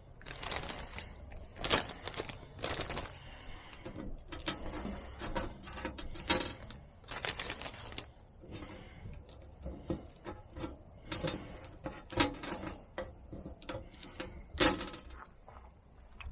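Plastic zip-top bag crinkling and rustling in irregular bursts as pieces of smoked salmon are lifted off a smoker's wire grate and dropped into it, with scattered light clicks.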